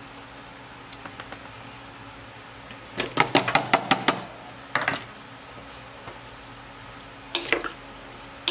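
Knocks and clinks against an aluminium cooking pot: a quick run of about seven taps a few seconds in as a plastic container of chopped onions is knocked against the rim. Near the end a metal spoon clinks against the pot as the stew is stirred.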